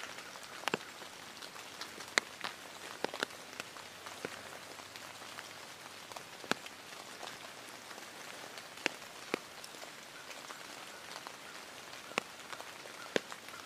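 Rain falling steadily in woodland, with scattered sharp ticks of single drops landing close by.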